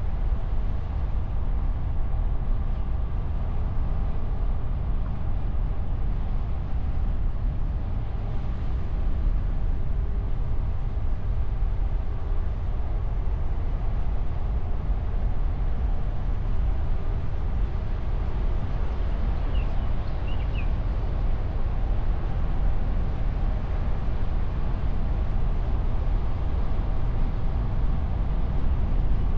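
Car driving along an open road, heard from a camera on the bonnet: a steady low rumble of engine, tyres and wind on a wind-shielded microphone.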